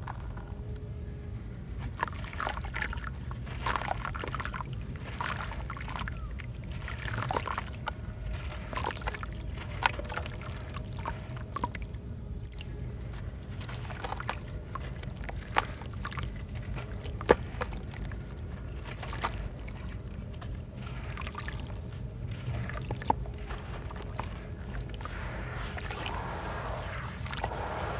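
Sand-cement with white stones crumbling in water: irregular crackles and a few sharp snaps over water sloshing and trickling, with a steady low hum underneath.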